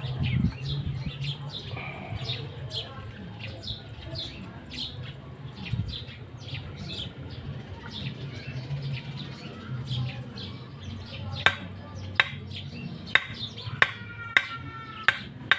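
Small birds chirping. In the last four seconds a hammer strikes the top of an upright steel GI pipe about five times, driving it through a leather cup gasket to punch a hole. The pipe rings briefly after one blow.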